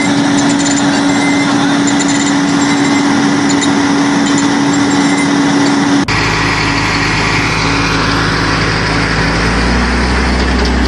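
Heavy diesel truck engines running under load. A steady engine drone while a cattle-truck road train pulls through water changes abruptly about six seconds in to a deeper, lower rumble as a stuck truck is towed out of mud.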